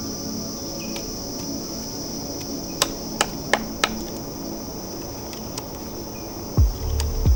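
Steady high-pitched drone of tropical forest insects, with four sharp clicks or snaps about three to four seconds in and a heavy thump near the end.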